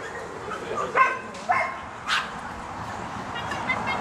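A dog barking excitedly during an agility run, with two sharp barks about a second in and a few fainter ones around them.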